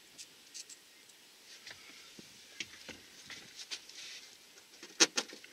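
Light handling noise of hands working at wood wall paneling: scattered small clicks and taps, with two sharper knocks about five seconds in.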